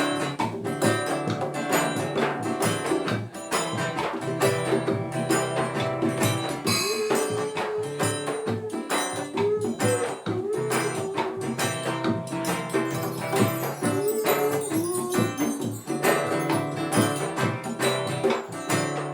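Reggae band playing an instrumental passage of the song: a steady beat with hand percussion such as tambourine, over which a melodic lead line wavers up and down.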